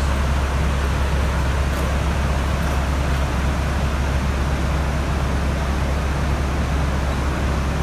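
Water rushing steadily over a river weir: a constant, even rushing noise with a deep rumble underneath.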